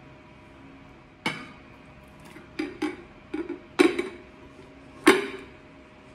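Glass bowl knocking and clinking against a ceramic plate as it is turned upside down to unmould a bread pudding: about six sharp knocks, the last two loudest.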